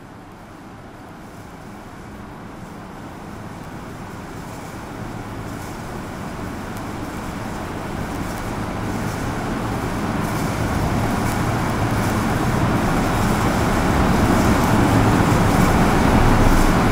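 Steady rumble of a motor vehicle's engine and road noise, growing steadily louder as it draws near, with a low hum coming in about five seconds in.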